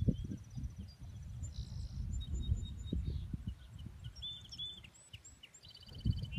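Low wind rumble and irregular thumps on the microphone, with small birds chirping and a rapid high trill now and then.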